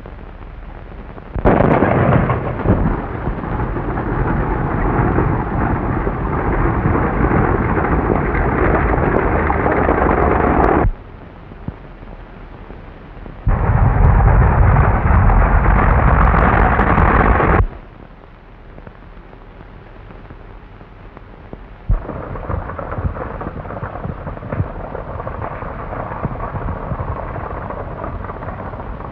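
Stagecoach and galloping horse team, heard as a loud, rough rumble on an early sound-film track. It cuts off and back in abruptly a few times, quieter in the last part.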